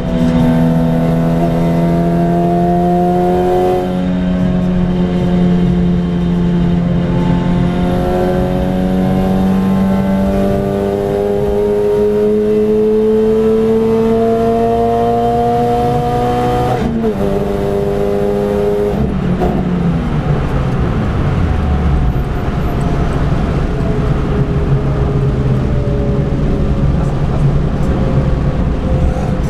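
Renault Clio RS four-cylinder engine heard from inside the cabin, pulling hard with the pitch rising and dropping at gear changes about four and eight seconds in. About seventeen seconds in the revs break sharply and then fall away as the car slows, before it runs on at a steadier, lower pitch, with tyre hiss from the wet track underneath.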